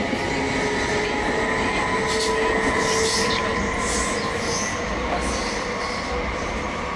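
SBB double-deck electric S-Bahn trains, a Stadler KISS unit among them, rolling slowly over station pointwork. A steady rumble and electric whine carry through, with brief high wheel squeals and hiss in the middle.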